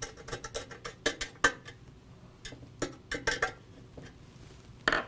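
Nut driver turning 5/16 sheet-metal screws that fasten a thermal limit switch to an aluminum fan stator: light, irregular metal clicks and ticks, in a dense cluster in the first second and a half and again around three seconds in.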